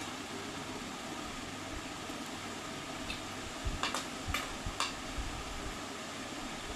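Light clinks of a steel serving spoon against stainless steel plates and bowls, a handful of them about three to five seconds in, over a steady fan-like background hiss.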